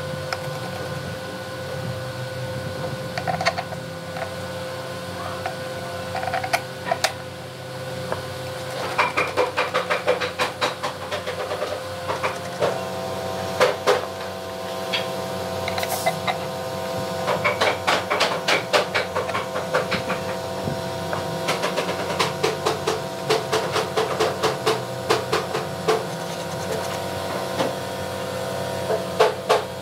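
Hand work fitting screws and a pivoting latch onto a wooden box: bursts of rapid light clicking and tapping, several seconds at a time, over a steady hum.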